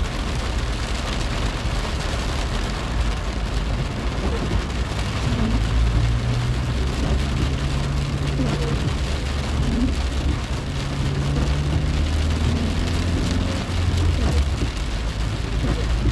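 Rain pattering on a car's windshield and roof, heard from inside the cabin as a dense steady hiss over the low rumble of the car in slow traffic.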